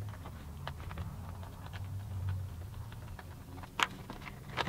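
Small screwdriver backing screws out of a plastic worklight housing: faint scattered clicks and ticks, with two sharper clicks near the end, over a low steady hum.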